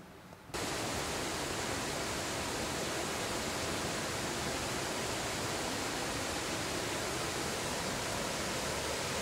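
A steady, even rushing noise that starts abruptly about half a second in and holds unchanged.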